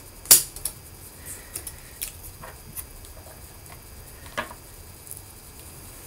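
Small clicks and taps of fingers and parts against an open MacBook Pro as a replacement battery and its connector are seated by hand. A sharp click about a third of a second in is the loudest, with a few softer taps after it and another clear click about four and a half seconds in.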